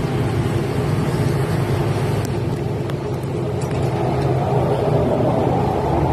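A motor running with a steady low hum, with a few faint ticks near the middle.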